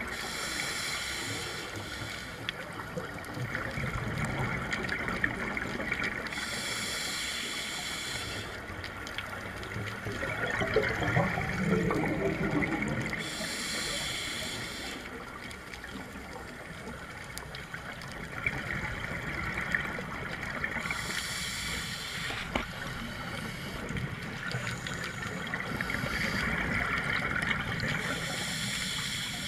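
Scuba diver breathing through a regulator underwater: a hiss of each inhale about every seven seconds, with gurgling bubbles of exhaled air between.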